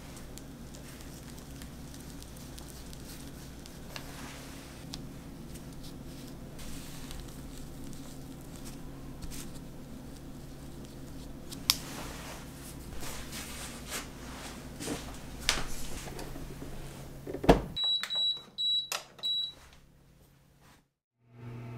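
Soft taps and presses as a round wooden tool pushes into the centres of filled bread dough on a tray, over a steady low hum. Then four short, high electronic beeps from an oven's control panel as it is set to proof the dough.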